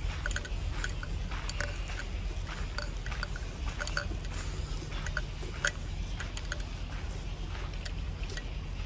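Footsteps crunching on a dry dirt path, a few irregular crisp clicks a second, over a steady low rumble of wind or handling on the microphone.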